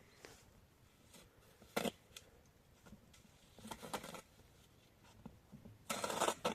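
Short bursts of handling noise, like rustling or scraping: a sharp one about two seconds in, a longer crackly one around four seconds, and the loudest, about half a second long, near the end.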